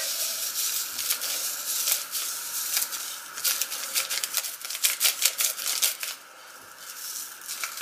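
A paper sachet of vanilla sugar crinkling as it is shaken out over a saucepan, with a dry hiss of fine sugar trickling out and many small ticks. The sound stops about six seconds in.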